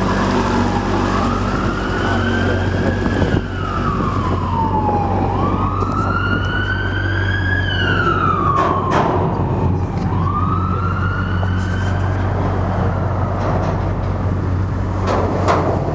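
An emergency vehicle siren wailing, its pitch slowly rising and falling about three times, over the steady low drone of the boat's engine. A few sharp clicks come near the end.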